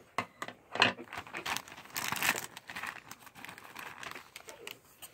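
Thin clear plastic McDonald's toy bag crinkling and rustling irregularly as it is opened by hand and the plush toy is pulled out.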